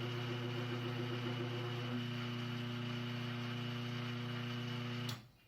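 Steady electrical mains hum, a low buzz with several overtones, from a repaired control board just powered up on the test bench. It cuts off abruptly near the end.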